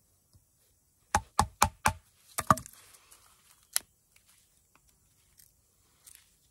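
Reiff Knives Circadian bush knife chopping a square notch into a wooden stick: four quick knocks about a second in, then a harder strike followed by a short crackle of wood, and one sharp click near four seconds in.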